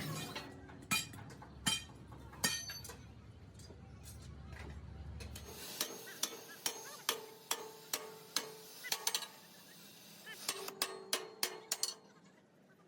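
Irregular sharp metal taps and clinks, some in quick runs, as of hand tools striking steel parts, over a low hum that cuts off about halfway through.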